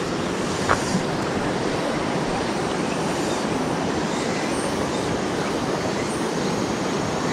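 Shallow river current rushing steadily over and around rocks.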